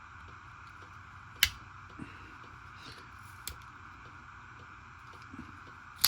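Sharp clicks of folding knives being handled and opened. Two loud clicks come about a second and a half in and near the end, with a few fainter ones between, over a steady background hum.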